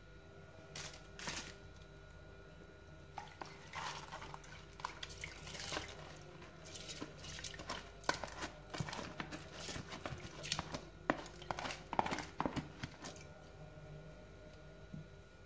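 Silicone spatula scraping soaked rice out of a plastic tub into a pot of milk, with the tub knocking against the pot: an irregular run of short scrapes and taps that dies away about two seconds before the end.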